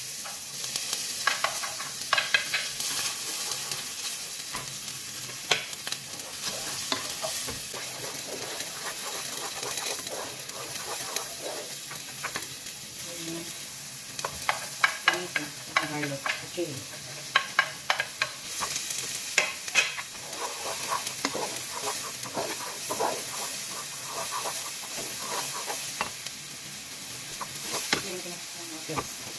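Chopped onion and tomato sizzling in hot olive oil in a pot as they are sautéed, with a wooden spoon scraping and clacking against the plate and pot in many short knocks as the ingredients are pushed in and stirred.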